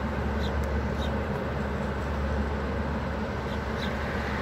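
Metra bilevel commuter coaches rolling slowly past on the track, a steady low rumble with a few faint high ticks.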